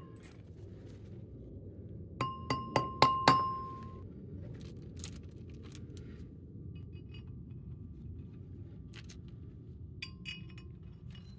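Steel flywheel and its bolts clinking as the flywheel is seated on a crankshaft and the bolts are started: four quick, ringing metal clinks about two seconds in, then a few lighter clicks and taps.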